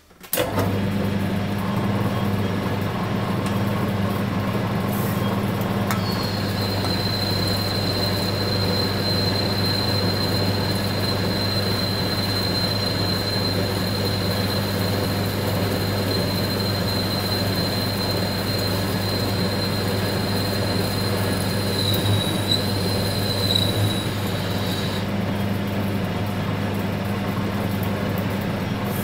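Warco WMT800 lathe-mill combo starting up and running with a steady motor hum while a boring tool opens out the bore of an aluminium end plate. A thin high-pitched whine from the cut sets in about six seconds in and stops about twenty-five seconds in.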